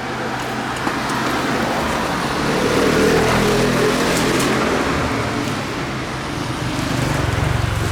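A motor vehicle engine running steadily, growing louder about three seconds in and again near the end.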